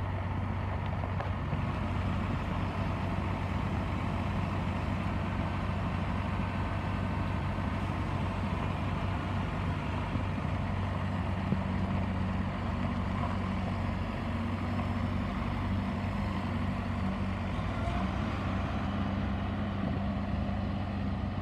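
Kubota L5240 tractor's four-cylinder diesel engine running steadily while the tractor is driven.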